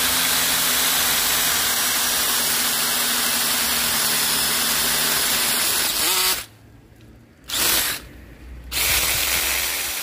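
Mini chainsaw attachment driven by a 12 V cordless drill/driver, its chain cutting slowly and with great difficulty through a thick tree branch. It runs steadily, stops about six seconds in, gives one short burst, and runs again near the end.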